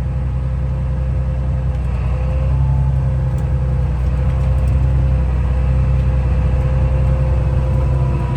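Farm tractor's diesel engine running steadily under load with a thin steady whine over the low hum, as the loader drags a chained blade out of a snowdrift.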